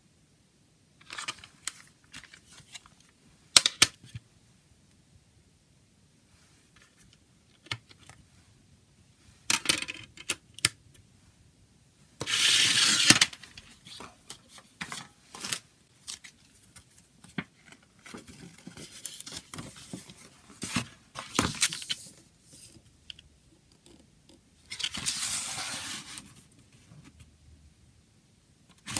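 Handling a plastic CD jewel case: scattered sharp clicks and snaps of the case being opened and handled, with stretches of paper rustling and sliding as a folded poster insert is taken out and unfolded.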